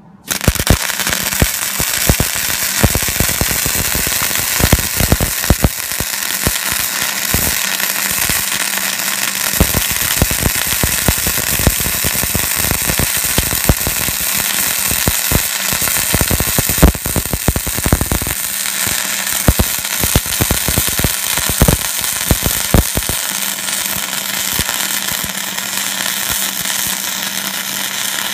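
Flux-cored wire-feed welder laying a bead on steel plate: the arc strikes just as the sound begins, then crackles and spits steadily with sharp pops, over a steady low hum.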